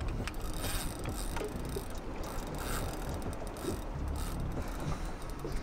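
Spinning reel clicking and whirring under the load of a hooked cobia on a hard-bent rod.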